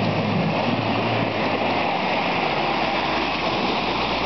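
Off-road 4x4's engine pulling under load as the vehicle ploughs through a deep, water-filled mud hole, with a steady rush of splashing and spraying water.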